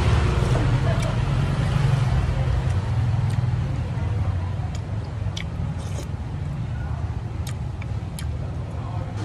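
Steady low rumble of street traffic, heavier in the first half and easing off later. A few light clicks of a spoon and chopsticks against the bowl sound over it.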